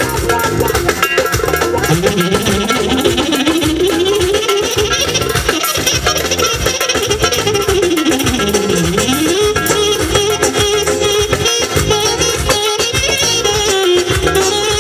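Live amplified wedding band playing Balkan folk-style dance music through a PA: a saxophone leads, its melody sweeping up and down in long runs over keyboard, drums and electric guitar.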